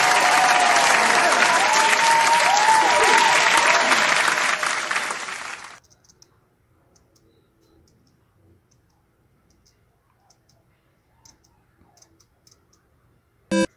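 Loud, dense crackling clicks for about six seconds, with a faint wavering whistle-like tone inside, then stopping abruptly and leaving only a few faint ticks.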